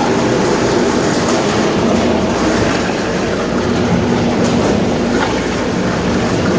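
TX 130 forced-feed meat grinder running steadily: a constant motor hum under a dense mechanical rumble, with no change in level.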